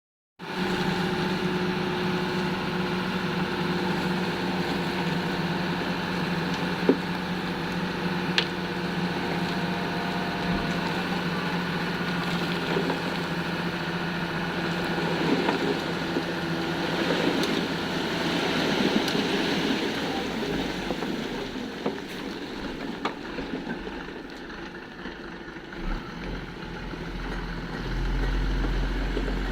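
An engine running steadily, with rougher, noisier stretches in the middle.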